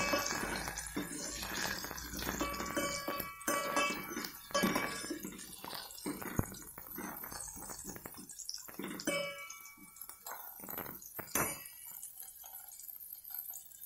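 A steel spoon clinks and scrapes against a stainless steel pot while shallots and garlic are stirred in hot oil. The pot rings after some of the knocks, over a light sizzle of frying oil. The clinking thins out near the end.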